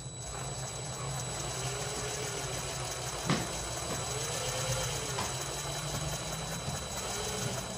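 Cordless impact driver running steadily, hammering a screw through a corrugated steel wall panel into the wood behind, with a sharp click a few seconds in. The screw has little self-drilling tip, so it is hard to drive through the metal.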